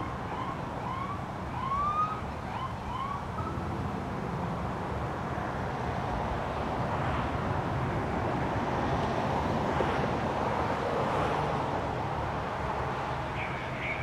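Emergency vehicle siren giving a run of short rising whoops in the first few seconds, over the steady hum of idling engines. Passing freeway traffic swells in the middle.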